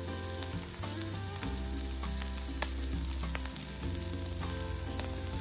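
Diced chicken thigh sizzling steadily as it browns in a hot non-stick frypan, with scattered clicks from the utensil moving the pieces against the pan.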